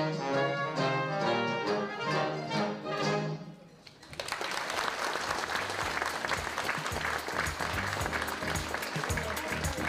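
Orchestral music ends about three and a half seconds in, and applause follows, a dense even clapping that lasts to the end.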